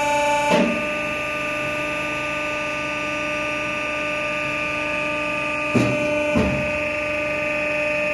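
Shoe-pattern hot-press machine running during its hot-press stage, with a steady electric hum and whine. One tone cuts off with a knock about half a second in, and two sharp knocks come about six seconds in.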